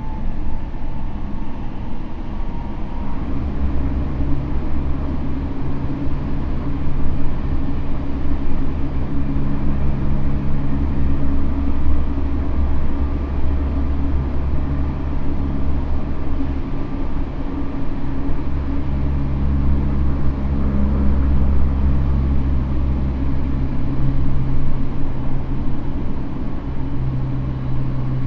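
Tokyo Metro N05 series electric train, heard from inside the car, running steadily between stations with a constant low rumble of wheels on rail.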